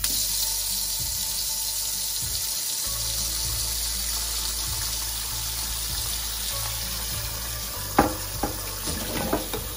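Cold tap water running steadily into a glass bowl in a sink, to cool freshly blanched asparagus and keep it crunchy. A single clink about eight seconds in, then a few lighter knocks.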